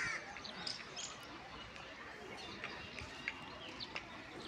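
Small birds chirping, short high calls scattered through, over a quiet steady background hiss.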